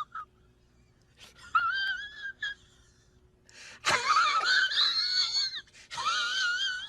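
A high-pitched, wavering wail used as a comedy sound effect, in three bursts: one about a second in, a louder one starting sharply near the middle, and a last one near the end.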